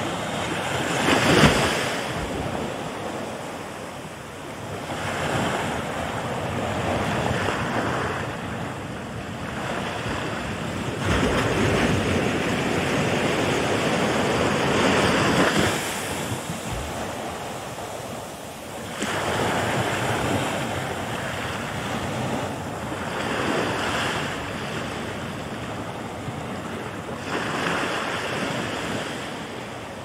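Ocean waves breaking and washing onto the shore, swelling and ebbing every few seconds, with the sharpest crash about a second and a half in.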